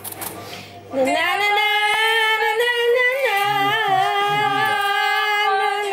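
A woman singing without accompaniment. About a second in she comes in on a rising note, then holds long, high, wavering notes that carry on to the end.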